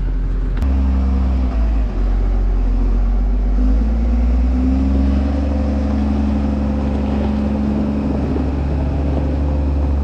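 New Holland wheel loader's diesel engine running steadily under load, its pitch rising a little about four seconds in as it revs up.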